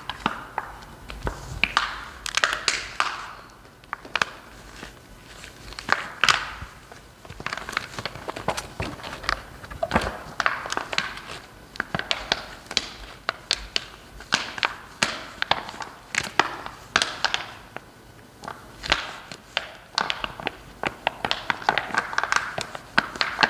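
The silver busbar strip on a plastic-laminated carbon heating film being scratched by hand, with irregular scraping strokes, sharp clicks and taps, and the crinkle of the thin plastic film being handled.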